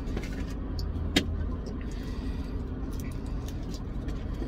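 Steady low hum of a car idling, heard inside the cabin, with one sharp click about a second in and a few faint ticks.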